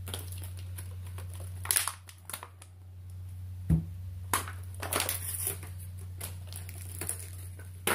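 Stiff plastic blister packaging crackling and crinkling in the hands as it is pulled apart, with a dull knock a little under four seconds in as the plastic match canister is set down on the table. A steady low hum runs underneath.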